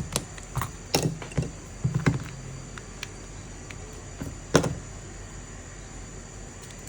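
Small clicks and knocks of a smartphone and its charging cable being handled as the charger plug is pushed into the new charging port, with one louder knock about four and a half seconds in.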